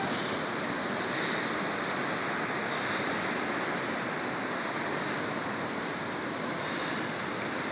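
Lake Erie waves breaking on a sandy beach: a steady, even rush of surf, with wind.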